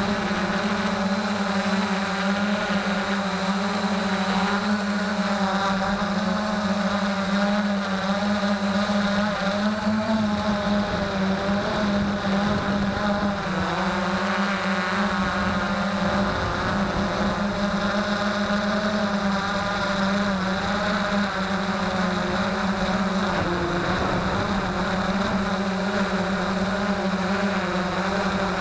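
Freex Skyview quadcopter's electric motors and propellers running in flight, a steady buzzing hum with overtones that waver slightly in pitch, picked up by the camera mounted on the drone.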